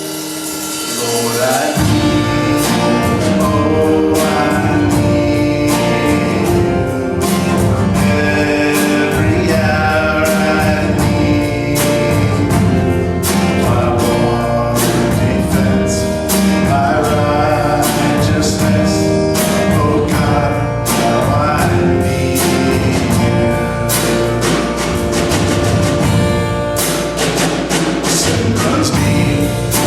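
A worship song: voices singing over instrumental accompaniment with a steady beat, the fuller low accompaniment coming in about two seconds in.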